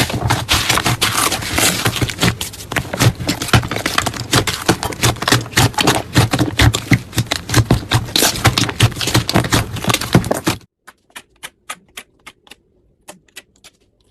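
Slime being squeezed and worked by hand, giving dense, irregular crackling and popping clicks. The sound cuts off suddenly about ten and a half seconds in, leaving only a few faint, scattered clicks.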